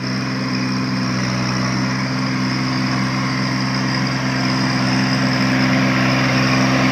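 Kubota 24 hp compact tractor's diesel engine running steadily as it drives through heavy mud, its note constant and growing slightly louder as it comes closer.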